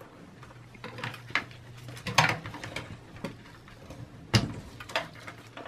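Scattered light clicks and knocks of a desktop PC's metal drive cage and plastic parts being handled, with the sharpest knock about four and a half seconds in.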